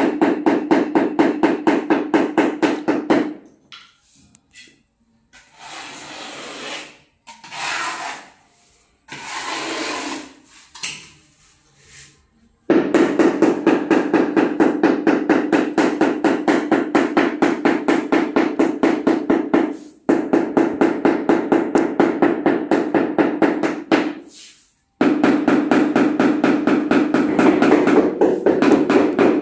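Rubber mallet tapping a large porcelain floor tile to bed it into the mortar: rapid, even, dull knocks, several a second. In the middle, for about nine seconds, the tapping stops and only softer scattered scraping sounds are heard before it resumes.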